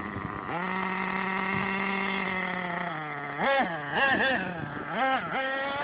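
Radio-controlled off-road car's motor running at a steady buzzing pitch for about two and a half seconds, then revved up and down in several quick throttle blips.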